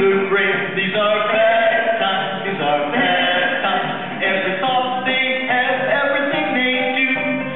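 Music with voices singing a song.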